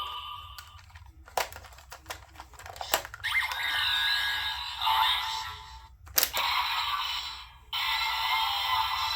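Kamen Rider Gavv toy transformation belt with the Blizzard Sorbei Gochizo: plastic clicks as it is loaded and cranked, and electronic music and sound effects from its small built-in speaker. The music plays in two stretches, the second beginning about two-thirds of the way in.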